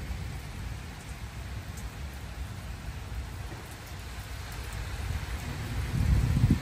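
Steady rain falling on roofs, paving and trees, with a low rumble that swells near the end.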